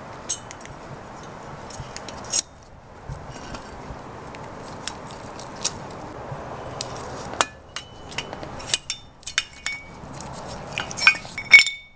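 Scattered sharp metal clicks and clinks of new brake pads and their steel retaining clips being seated in a front disc-brake caliper bracket, over a steady background hiss. The loudest click comes near the end.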